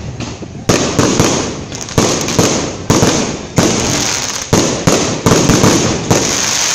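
Aerial fireworks bursting overhead in quick succession: a string of sharp bangs, about one or two a second, with crackling and fizzing from the falling stars between them.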